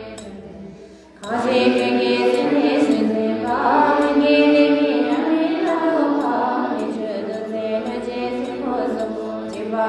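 Buddhist prayer chanted to a melody by female voices over a steady low drone. The chant fades at the start, then resumes strongly about a second in.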